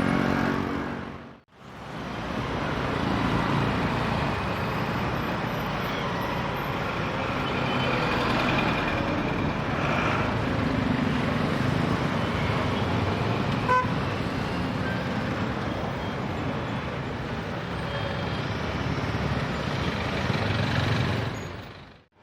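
Busy city road traffic: a continuous mix of car, truck and motorbike engines, with occasional short horn toots.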